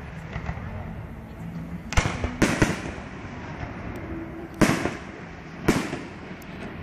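Aerial firework shells bursting: four loud bangs, two close together about two seconds in, a third about four and a half seconds in and a fourth a second later, each with a short trailing echo.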